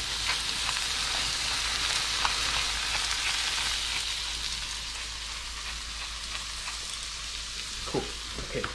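Shovelnose shark steak sizzling in olive oil on a foil-lined pan: a steady frying hiss with small crackles, easing off a little about halfway through.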